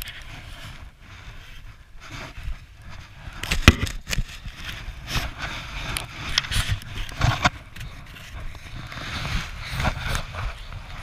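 Small plastic snow shovel scraping and knocking in snow, close to a body-worn camera, with snowsuit fabric rustling. There are several sharp knocks, the loudest about a third of the way in and again about two-thirds in.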